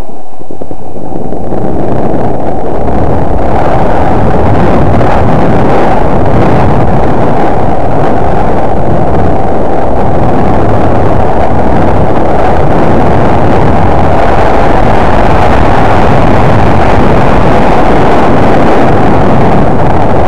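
Wind buffeting the camera's microphone while riding down a snow slope at speed: a loud, steady rumble that builds up over the first second or two and then holds.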